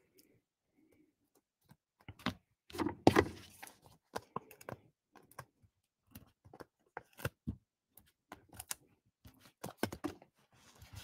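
Hands handling paper and card on a craft table: scattered taps, clicks and paper rustles, the loudest knocks about two to three seconds in, as small foam adhesive pieces are peeled from their backing sheet and pressed onto a paper circle.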